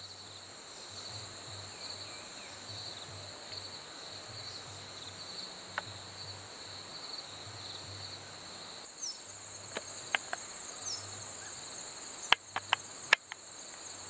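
Insects trilling steadily at two high pitches, with a couple of short bird chirps and a few sharp clicks in the last few seconds.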